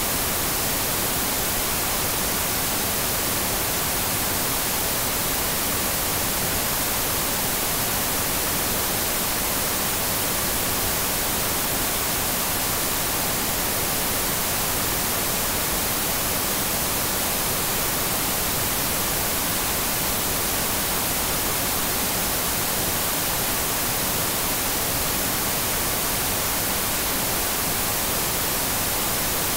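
TV static: a steady, even hiss of noise, brightest in the treble, holding one level throughout.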